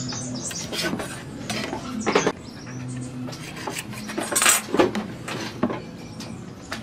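Steel square and metal ruler being set down and shifted on pine boards: a run of light metal clinks and knocks against the wood, the loudest cluster a little past the middle.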